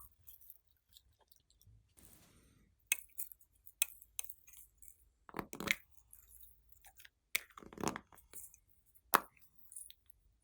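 Glossy slime being worked by hand, giving irregular sticky clicks and pops, with two short runs of louder squelches, one around the middle and one a couple of seconds later.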